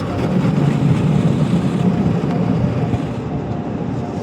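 Steady low machine noise of an automatic car wash tunnel heard from inside the car, a little louder in the first couple of seconds.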